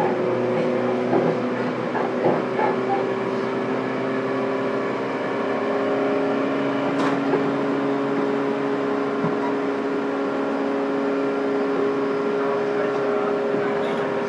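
Running sound inside a JR Kyushu 415 series 1500-subseries electric multiple unit, recorded in motor car MoHa 415-1512: a steady hum of several held tones over the rumble of the train under way, with a single sharp click about seven seconds in.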